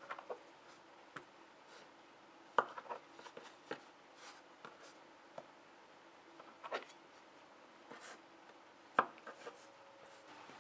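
Knife blade cutting through soft bread dough and tapping the floured countertop: scattered sharp taps a second or more apart, the loudest about a third of the way in and near the end, with softer small clicks and rubs between.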